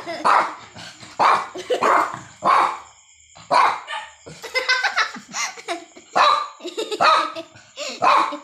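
Small long-haired dog barking over and over, about two barks a second, with a short lull about three seconds in: the barking of a hungry dog waiting for its food.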